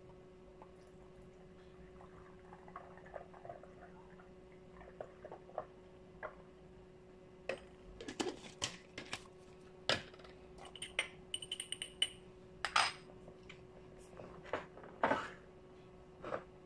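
Soy sauce trickling faintly through a stainless steel funnel into a glass condiment bottle. It is followed by a run of clinks and knocks from the glass bottles, the metal funnel and the pourer caps being handled, a few of them ringing briefly.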